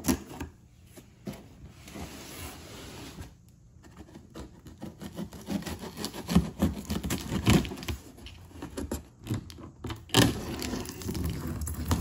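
Packing tape on a cardboard box being slit open with a metal tool drawn along the seam: scratchy scraping and tearing strokes mixed with small knocks against the cardboard, the loudest about halfway through and near the end.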